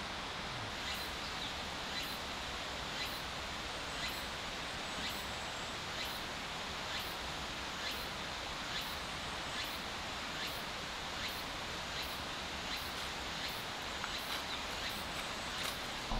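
Outdoor forest ambience: a steady, even hiss with short sharp ticks repeating roughly once a second, coming a little faster near the end.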